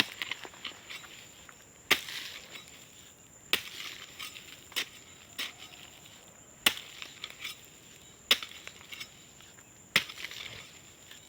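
A digging tool chopping into dry soil to make a planting hole for a cassava cutting: seven sharp strikes about every second and a half, each followed by a brief scatter of loosened earth. A steady high insect drone runs underneath.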